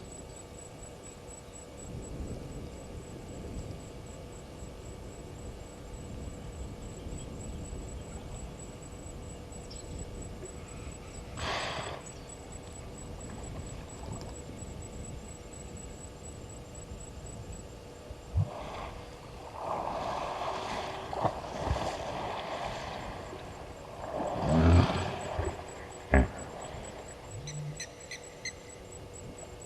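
Outdoor waterhole ambience from a live wildlife camera's microphone: a steady high pulsing trill and a constant low hum. Several short unidentified rustles and noises come in the second half, the loudest about 25 seconds in, followed by a sharp click.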